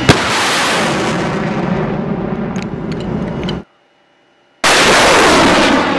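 Truck-mounted multiple rocket launcher firing: a sharp crack, then the loud rushing roar of a rocket launch that fades and cuts off abruptly. After about a second of silence, a second launch roar starts suddenly and fades.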